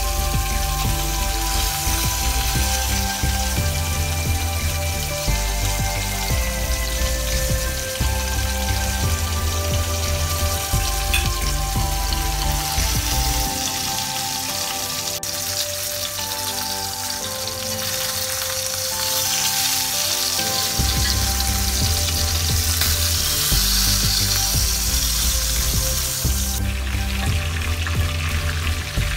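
Chicken shallow-frying in oil in a cast-iron skillet, a steady sizzle that grows stronger in the second half. Background music with a bass beat plays throughout, dropping its bass for a few seconds midway.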